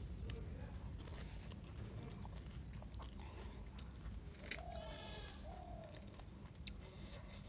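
Scattered small cracks and clicks of crisp pani puri shells being poked open and handled, with a single bleat from a goat or sheep in the background about four and a half seconds in.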